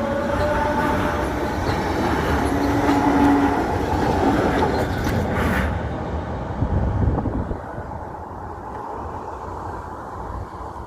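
RB27 regional train rolling along the track with a dense rumble and a brief squealing tone about three seconds in. The rumble dies away about six to seven seconds in, leaving a low outdoor hiss.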